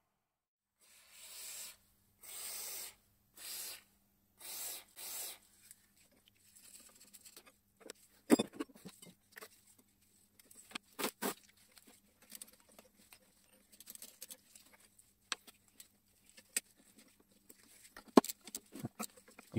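Five short hissing bursts in quick succession over a faint steady hum, then irregular sharp metal clicks and knocks from hand tools working the end-housing bolts of an old, rusty electric motor.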